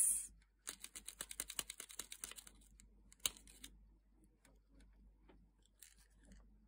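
Folded-paper action origami emu beak snapped open and shut between the fingers: a fast run of light paper clacks, about ten a second, for about two seconds, then one louder clack.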